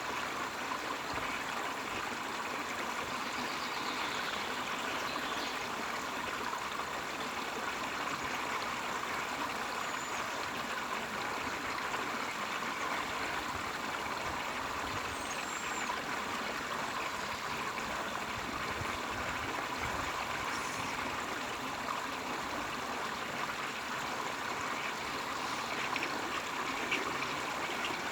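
Steady flowing water of a stream, an even rushing and trickling that holds at one level throughout.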